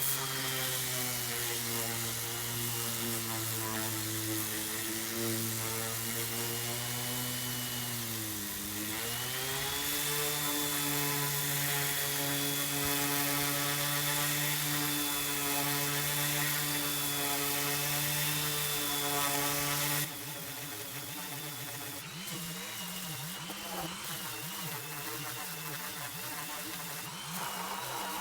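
An electric power tool's motor running with a hiss of cutting. Its pitch sags briefly about eight seconds in and recovers. About twenty seconds in it turns quieter and its pitch wavers.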